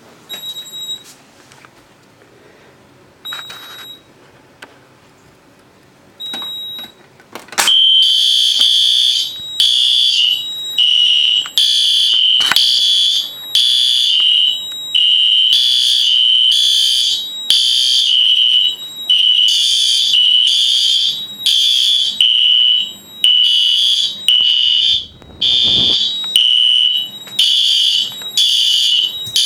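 Fire alarm sounder going off. It comes in about eight seconds in, a loud high-pitched tone that pulses on and off in an uneven pattern. Before it starts there are only a few short, faint high beeps.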